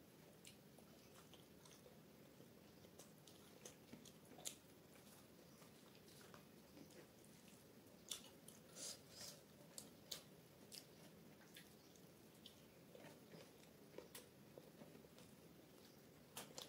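Faint eating sounds: chewing of paratha and saag, with irregular wet mouth clicks and smacks, a small cluster of them about halfway through and again near the end.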